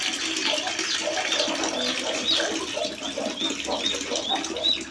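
Water pouring from a hose into a plastic chicken waterer, splashing steadily. Chicks cheep repeatedly over it in the second half.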